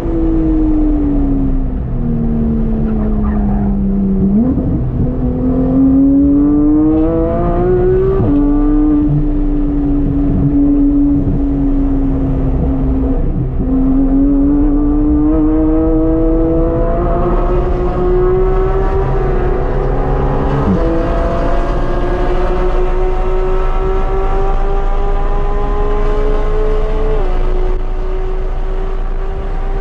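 Porsche GT3's naturally aspirated flat-six, fitted with an aftermarket exhaust but keeping its catalytic converters, at full song on track. The revs fall under braking with a sharp blip about four seconds in, then climb steadily through the gears, with quick upshifts about two-thirds of the way through and near the end, where the pitch drops and starts rising again.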